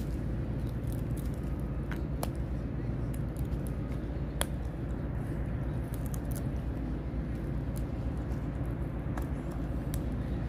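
Dog gnawing a wooden stick, with a few scattered sharp cracks of the wood, over a steady low rumble.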